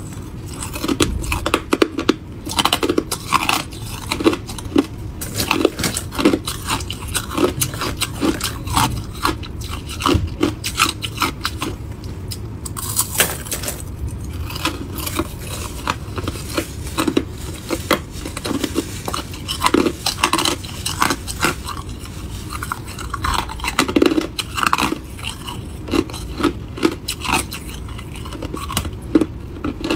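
Crushed ice being bitten and chewed: a continuous run of irregular crunches and crackles.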